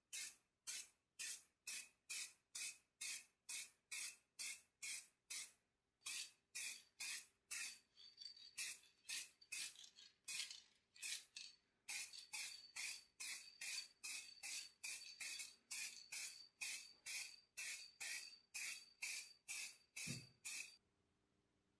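Aerosol spray-paint can sprayed in short hissing bursts, about two a second, putting a coat of copper paint onto a primed metal blowtorch. The bursts stop about a second before the end.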